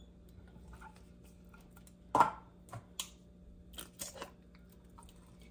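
Small cans of tomato paste being emptied into a pot of sauce: a handful of short, sharp knocks and clinks, the loudest about two seconds in.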